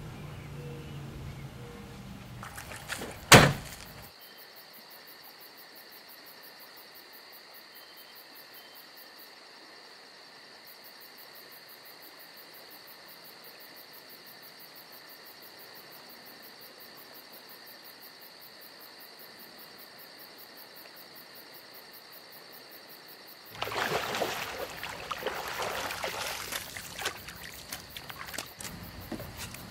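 A sharp click about three seconds in, then a steady outdoor insect chorus of crickets trilling. From about six seconds before the end, water splashing and sloshing as a hand stirs the shallows of a lake.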